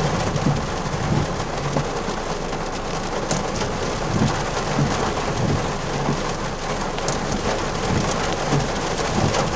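Heavy rain drumming steadily on a car's roof and windshield, heard from inside the car.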